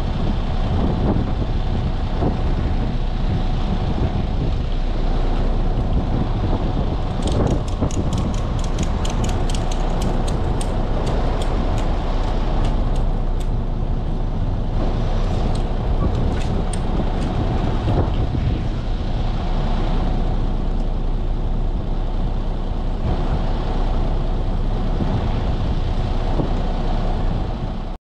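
A truck running steadily with a low rumble and hiss. From about a quarter of the way in to about halfway there is a quick run of sharp clicks, with a few more a little later.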